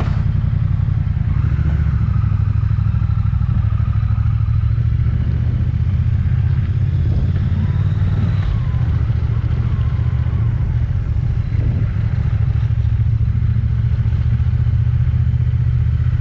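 Triumph motorcycle engine running steadily at an even, low pitch as the bike is ridden slowly, heard from on the bike.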